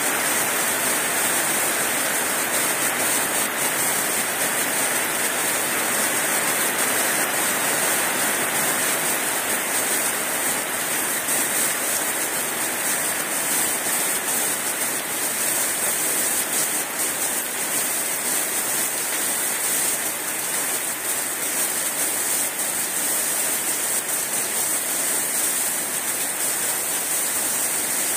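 Heavy rain pouring steadily onto trees and leaves, an even, unbroken hiss.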